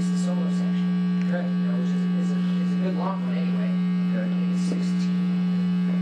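Loud, steady electrical mains hum: one low droning tone with fainter overtones, unbroken throughout, with faint talk underneath.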